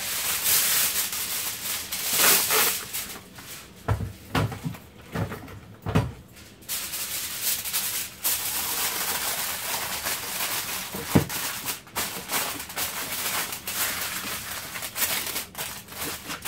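Aluminium foil crinkling and rustling as a sheet is handled and pressed down by hand around the edges of a serving platter. A few sharp knocks stand out, about four, six and eleven seconds in.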